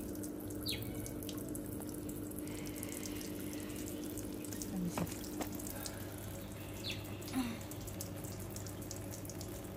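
Steady trickle of running water, with a few short faint clicks.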